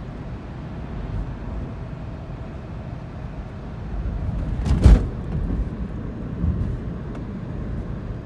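Steady road and engine rumble heard from inside a moving car's cabin, with a brief loud whoosh just before five seconds in as an oncoming car passes.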